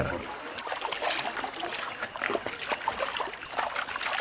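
Shallow river water splashing and trickling as people rinse their bodies in it, a scatter of small irregular splashes.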